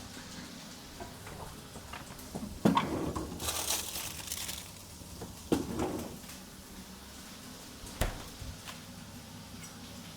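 Kitchen prep handling: a few knocks on a chopping board and a short crinkling rustle, as another tomato is fetched and readied for cutting.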